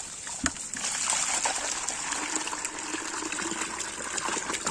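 Backwash water from a pool sand filter gushing out of its hose and splashing, first onto paving as the catch bucket is tipped out, then churning into the bucket as it fills again. There is a single knock about half a second in.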